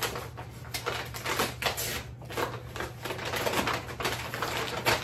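Brown paper Amazon mailer bag crinkling and rustling as it is handled and opened, a rapid irregular run of crackles.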